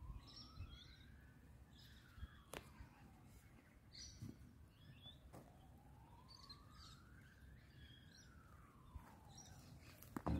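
Faint, distant siren wailing, its pitch rising slowly and then falling twice, with faint bird chirps and a few light clicks.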